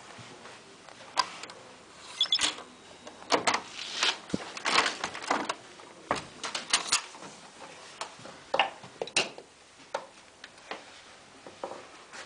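Hotel room door with a keycard lock being unlocked and opened: an irregular run of clicks and knocks from the lock, lever handle and door, thickest between about two and seven seconds in.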